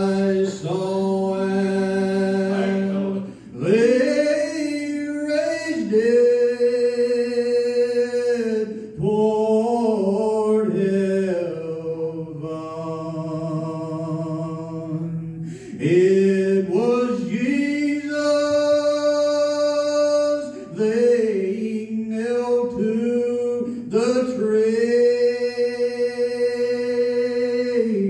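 A man singing solo a cappella, unaccompanied. He sings slow phrases of long held notes, each ending in a short break for breath.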